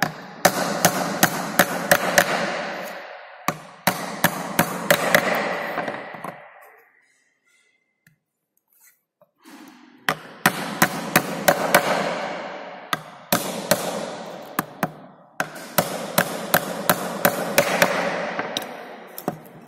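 Hammer driving small nails into the edge of a plywood box: runs of quick, sharp taps, a few a second, with a short silent break midway.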